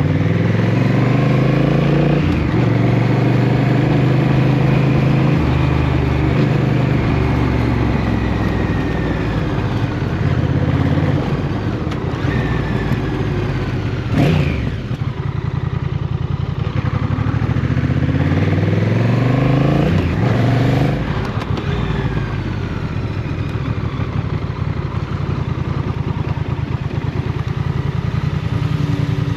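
Motorcycle engine under way, rising in pitch as it accelerates at the start, holding a steady cruise, then climbing again about two-thirds of the way through before easing off. A brief loud rush about halfway through stands out over the engine.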